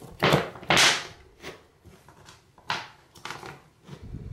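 Marble hexagon mosaic tile sheets clacking as they are set down and fitted together by hand, a handful of sharp, unevenly spaced knocks.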